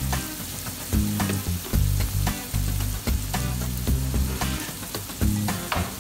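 Sliced onions and diced green peppers sizzling as they fry in a stainless steel pan, a steady hiss with scattered light clicks. Low notes of background music run underneath.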